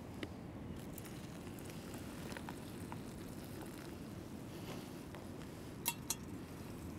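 Small metal camping pot and cookware handled over an alcohol stove: light clinks as hot water is poured into a food pouch, then two sharp metal clinks close together near the end as the pot is set back down on the stove. A steady low wind rumble runs underneath.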